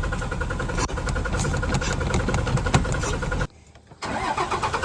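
Dodge truck engine being cranked over by the starter without catching, a steady rapid churning. It cuts out for about half a second near the end, then cranking starts again.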